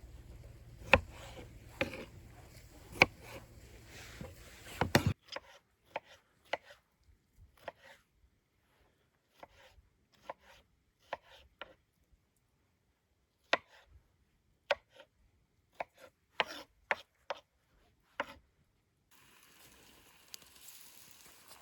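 Kitchen knife chopping on a cutting board in single sharp strokes, about one a second at first, then irregular.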